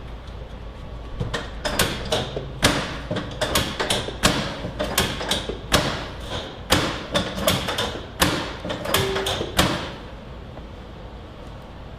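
A rapid series of about twenty sharp thumps and knocks, roughly two a second, from a chiropractic adjustment along the back of a person lying face down. The thumps start about a second in and stop about ten seconds in.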